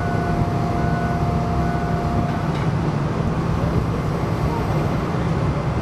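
Steady engine drone, with a thin steady whine over it that stops about two and a half seconds in.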